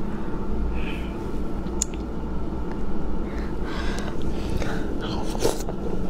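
Close-miked biting and chewing of spicy boneless chicken feet: soft wet mouth sounds and a few small clicks over a steady low hum.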